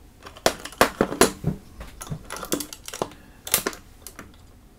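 Irregular sharp clicks and taps of guitar effects pedals and short patch cables with pancake plugs being handled and set in place on a pedalboard, the loudest about a second in.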